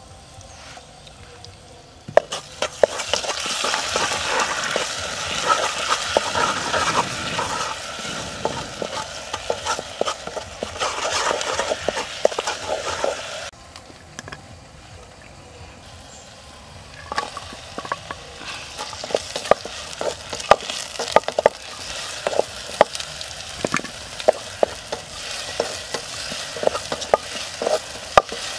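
Garlic sizzling in hot oil in a metal pot from about two seconds in. The sizzle breaks off near the middle, then red cabbage is stir-fried in the pot, the wooden spatula's strokes clicking against the metal over the sizzle.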